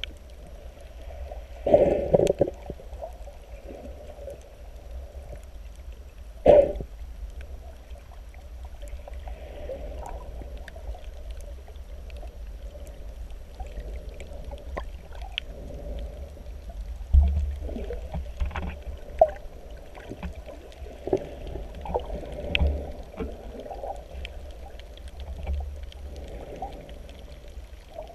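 Muffled underwater sound of shallow water sloshing and surging, heard through a submerged camera, with a low steady rumble and several sharp knocks and thumps scattered through it.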